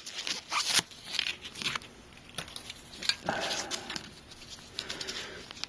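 Soft rustling and scratching with scattered small clicks and taps: a cotton swab and cleaning paper being handled, and a surface being wiped clean of debris.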